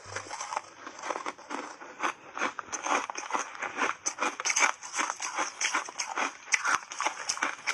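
Refrozen shaved ice coated in matcha powder being bitten and chewed: a dense, irregular run of crackly crunches, several a second.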